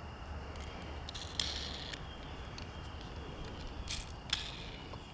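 A die-cast Hot Wheels toy car being handled: a few light clicks and a short scrape about a second and a half in, and two more clicks near four seconds, over a low steady hum.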